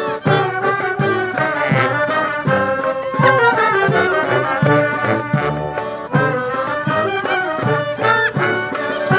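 Klezmer band playing live: a wind-instrument melody line over a steady bass beat at about two beats a second.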